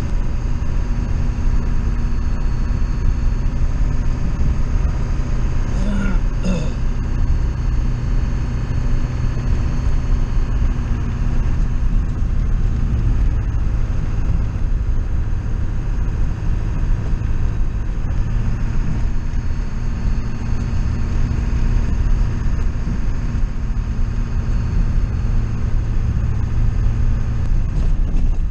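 Steady running noise of a motor vehicle, low and even, with a brief higher sound about six seconds in.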